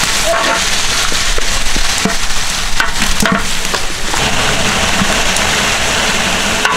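Broiler chicken frying in hot oil in a large aluminium pot: a loud, steady sizzle with scattered crackles.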